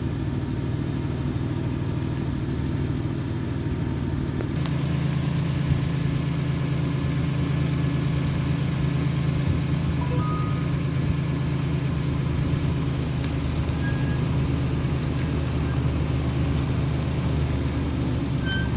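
Jeep Wrangler's 3.8-litre V6 idling steadily, tested after a PCM repair that restored the coil drivers for cylinders 3 and 6, which had been misfiring. The engine note steps up slightly about four and a half seconds in.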